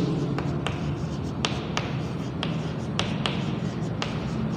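Chalk writing on a blackboard: a string of sharp, irregularly spaced taps and light scratches as the chalk strikes and moves across the board, roughly two to three taps a second.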